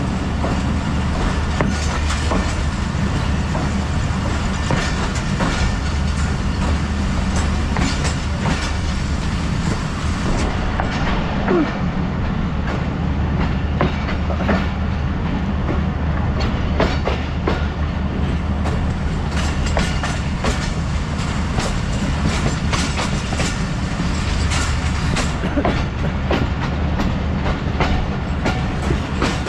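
Passenger coach of a moving train running along the track: a steady rumble with frequent clicks and clacks of the wheels over the rails, heard with the microphone held out of the coach's side.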